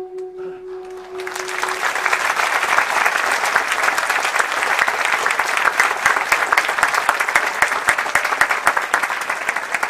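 The music's last held note dies away, and about a second in an audience breaks into steady, sustained applause.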